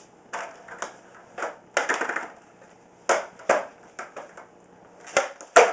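Skateboard on a concrete floor: a string of knocks and clacks as the tail pops and the deck and wheels come down during an ollie attempt, with the sharpest clack near the end.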